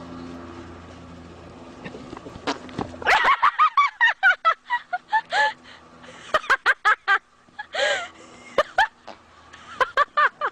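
A horse passing gas as it moves off: rapid runs of short, pitched toots in bursts, starting about three seconds in and stopping near the end.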